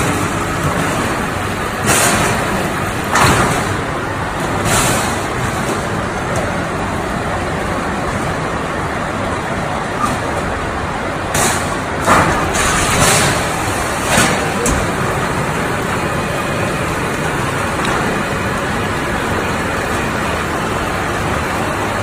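Prima auto duct line 5, an automatic HVAC rectangular-duct production line, running: a loud, steady machine din of sheet metal being fed and formed. Several short hiss-like bursts come in the first two-thirds.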